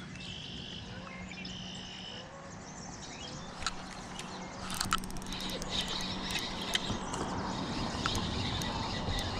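Small birds calling in short warbling phrases over a steady low hum, followed in the second half by a series of sharp clicks over a rushing noise.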